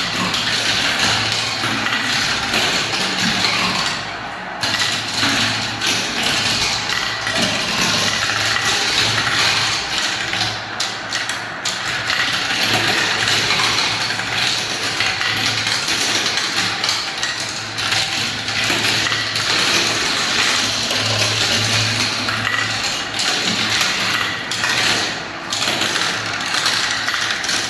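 Many marbles rolling and clattering down a spiral marble-run ramp: a dense, steady rattle full of small clicks, with a brief dip about four seconds in.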